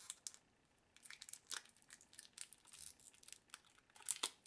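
Faint crinkling and small clicks of two batteries being pulled apart by hand, peeling away from the adhesive that holds them together. The loudest crackle comes about four seconds in.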